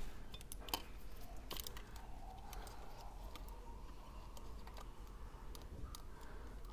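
Faint scattered clicks and light scraping of a small tool working at iPhone 12 parts held together with adhesive.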